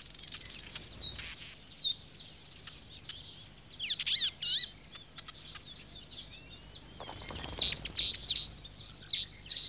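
Small birds chirping and twittering in quick, high, sliding notes, coming in irregular clusters that are loudest around the middle and again near the end.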